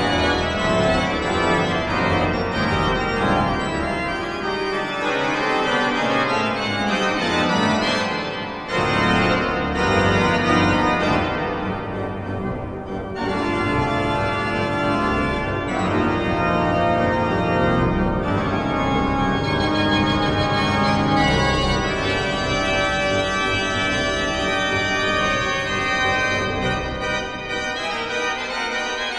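Church pipe organ playing jazz harmony: full sustained chords, with a brief dip about a third of the way in before the sound comes back full.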